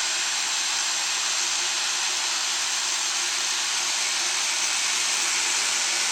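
A workshop tool running steadily with an even, high hiss that holds the same pitch and level throughout.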